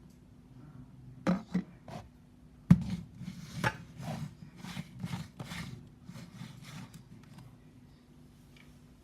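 Objects handled on a hard surface: a few sharp knocks, then a run of short scraping or rubbing strokes, about two to three a second, that fade out near the end.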